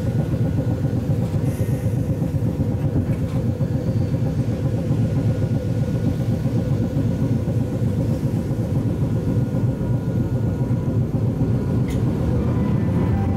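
Hakodate City type 719 tram running steadily along its line, heard from on board: a continuous low rumble of wheels and running gear, with one sharp click near the end.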